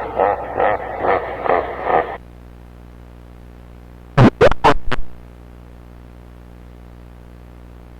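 Distorted broadcast audio: a garbled, growling voice that is not words, sounding thin as if over radio, stops about two seconds in. A steady electrical hum then carries on, broken about four seconds in by four sharp, loud crackles in quick succession.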